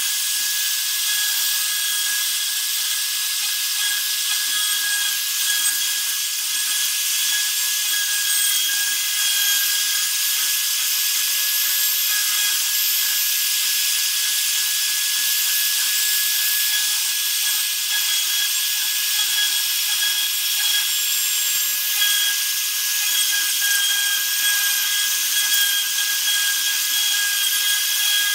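Spindle motor of a homemade CNC router running steadily with a high whine over a hiss, while its pointed engraving bit carves into a wooden plaque, with a faint crackle of the cut.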